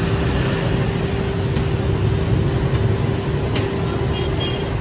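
Steady street noise: a low rumble of passing motor traffic with a constant hum running through it, and a few light clicks scattered through the middle.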